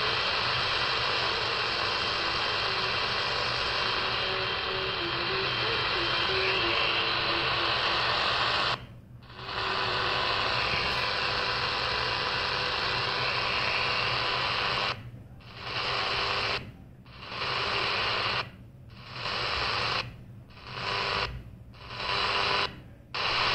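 CS-106 DSP portable radio on medium wave, giving steady hiss and static from a weak station, with a few faint tones in it. The sound cuts out briefly each time the tuning steps to the next channel: once about nine seconds in, then every second or two from about fifteen seconds on as the band is scanned.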